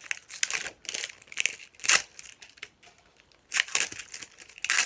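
Plastic wrapping crinkling and tearing as it is stripped off a Mini Brands plastic capsule ball being pried open, in irregular sharp rustles. The loudest rustle comes about two seconds in, with a brief lull after that.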